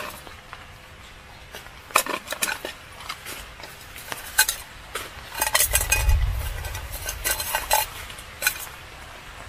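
Small aluminium camping cook pots clinking and scraping against each other as they are pulled out of a mesh bag and separated, in scattered clinks with a busier run of clatter and handling noise about halfway through.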